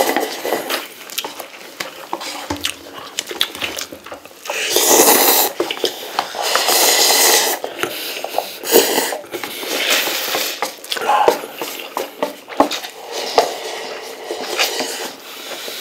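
Two people eating instant noodles fast from paper cups: noodles slurped in, with two long, loud slurps near the middle, chewing, and many small clicks of wooden chopsticks against the cups.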